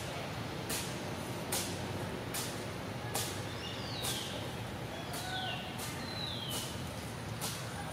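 Outdoor ambience: a dry, high pulse repeating a little more than once a second, with three short high-pitched falling calls from about four seconds in, over a steady low rumble.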